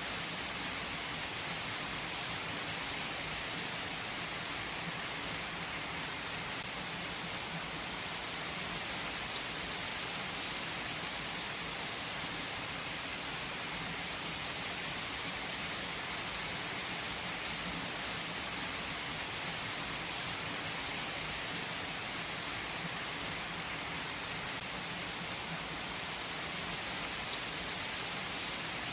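Heavy rain falling steadily on tree foliage: a dense, even hiss of many drops.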